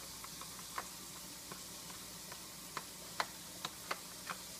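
A dog licking and nibbling at a plastic treat cup held out to it: a handful of sharp clicks, most of them in the second half, over a faint steady hiss.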